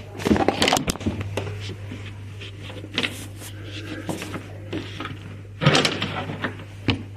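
Plastic knocks and clicks from handling an external fridge water filter and its push-fit pipe fittings, loudest about half a second in and again around six seconds in, over a steady low hum.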